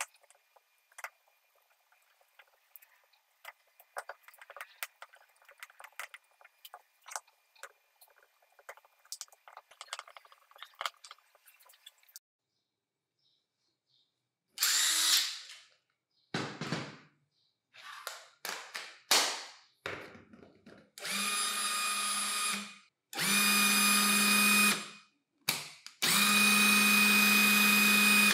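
Faint small clicks for the first half. Then a rebuilt National EZ6505 cordless impact driver's motor runs in short trigger pulls: several brief bursts, then three runs of about two seconds each, each a steady whine.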